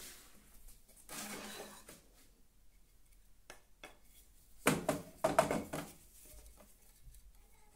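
Pieces of freshly cut wooden board being handled: a brief scrape about a second in, then a cluster of sharp wooden knocks and clatters as the board and its offcut are lifted and bump together.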